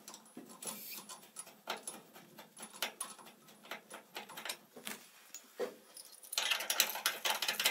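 Metal clicks and clinks of a brass hose fitting being unscrewed from a boiler drain valve, then a denser jangling near the end as the valve's brass cap on its small chain is handled.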